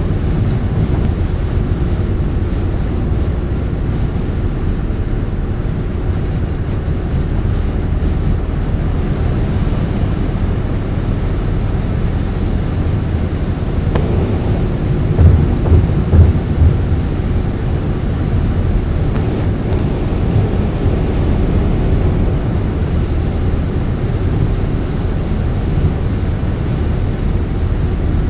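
Steady road noise inside a car's cabin at highway speed: a low rumble of tyres and engine. A few louder low thumps come a little past halfway.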